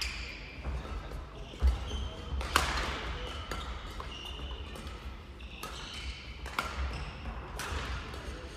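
Badminton play in a sports hall: several sharp racket hits on a shuttlecock, with short high squeaks of court shoes on the floor in between.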